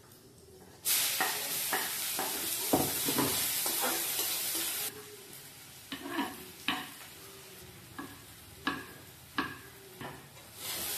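Tadka for dal frying in hot oil in a kadai: a loud sizzle starts suddenly about a second in and drops back after about four seconds. A spoon then stirs and scrapes the pan, knocking about once a second, while the oil keeps sizzling more quietly.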